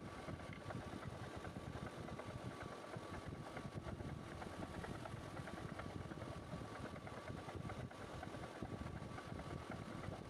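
Lathe running steadily: a dense low rumble with fast fine rattling and a thin steady tone above it.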